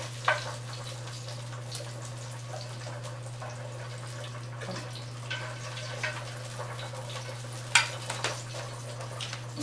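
Faint, steady sizzling hiss of stovetop cooking over a constant low hum, with a few light clicks and knocks of kitchen utensils.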